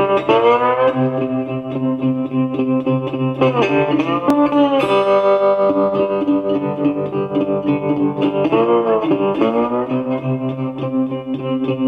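Intro music on guitar: held notes with slides between pitches every few seconds.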